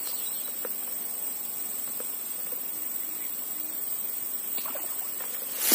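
Steady outdoor background hiss with a thin, high, steady whine over it and a few faint ticks, then one sharp click near the end.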